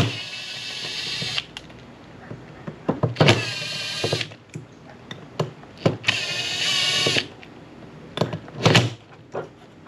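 Power driver spinning out screws in three short runs of about a second each, its motor whining steadily, with sharp clicks of metal parts being handled between the runs.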